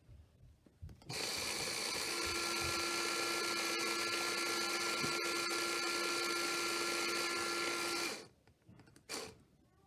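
Small Lego electric motor from a Lego train set running the machine gun's gear train, a steady whine with a gear whir. It switches on about a second in and cuts off suddenly about seven seconds later.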